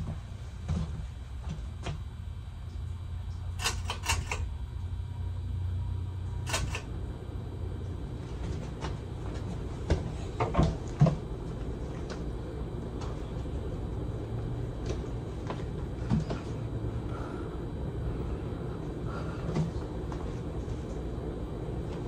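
Four-blade Hunter Original ceiling fan with a PSC motor running steadily, a low whir of motor and moving air. Short clicks and knocks come and go over it, a cluster about ten to eleven seconds in.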